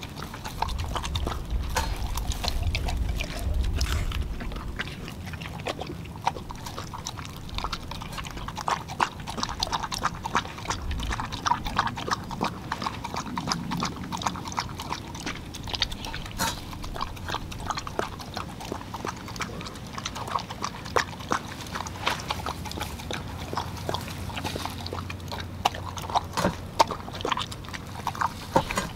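A dog eating ground raw meat from a stainless steel bowl: wet chewing, smacking and lapping with many small clicks throughout. A low rumble sits under it for the first few seconds.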